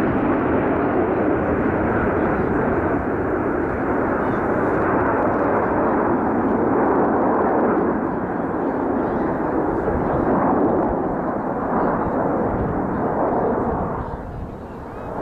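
Steady jet roar from a formation of Aermacchi MB-339 jet trainers flying overhead. It dips for a moment near the end.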